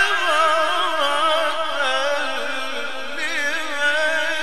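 An Egyptian sheikh's voice in chanted, melodic Quran recitation, holding one long, ornamented note whose pitch wavers and turns throughout, dipping lower about halfway through.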